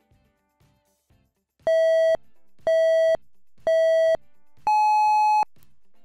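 Electronic countdown beeps: three short beeps at the same pitch about a second apart, then one longer, higher beep, like a race-start signal. They count in the start of a hearing-test tone sweep.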